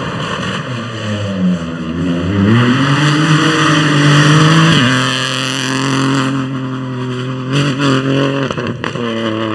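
Peugeot 208 rally car accelerating hard past at full throttle, its engine note rising to a peak as it goes by about four seconds in, then dropping suddenly in pitch on a gear change and carrying on as it drives away.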